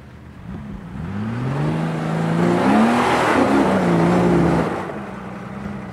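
Jeep Wrangler Rubicon engine revving under load as it climbs a steep dirt slope. The pitch rises over a couple of seconds, then wavers up and down as the throttle is worked. It is loudest as the Jeep passes close, then drops off sharply near the end.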